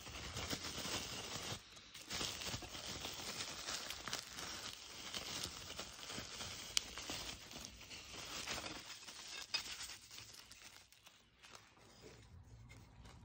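Bubble wrap and cardboard packaging being handled, crinkling and rustling, with one sharp click about seven seconds in; the rustling dies down after about nine seconds.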